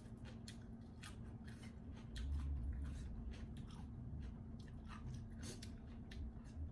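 Close mouth sounds of crunchy chewing and biting on raw vegetables and pounded green-apple salad: a string of sharp crunches, with a dull low bump about two seconds in.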